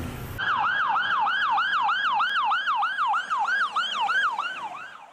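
Ambulance electronic siren on yelp: a fast rising and falling wail, about four cycles a second, fading away near the end.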